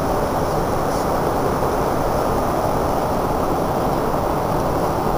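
Steady rushing cabin noise inside a jet airliner, an even roar with no changes in level.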